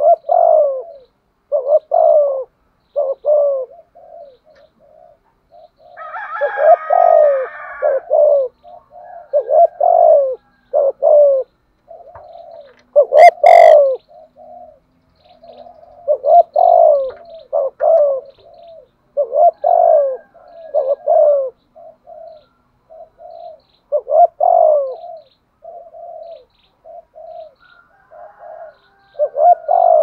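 Spotted dove cooing in rapid, insistent phrases ('gù thúc'), a long run of short coo notes repeated over and over. One note about halfway through is louder than the rest.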